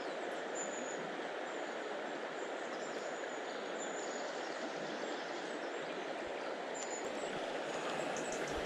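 Fast-flowing river current running over its bed, a steady rushing wash of water.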